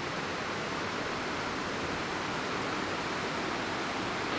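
Waterfall rushing in a steady, even roar of falling water.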